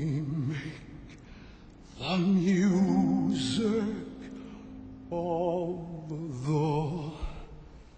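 Male baritone voice singing slow, sustained phrases in musical-theatre style with a wide vibrato: three phrases with short breaks between them, and a steady held accompanying note under the middle one.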